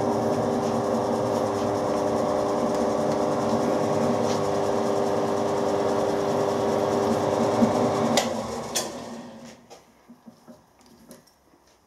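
Drilling machine's spindle motor running at a steady pitch while a centre drill spots a hole in a square steel bar. The machine is switched off about eight seconds in and spins down, followed by a few light clicks.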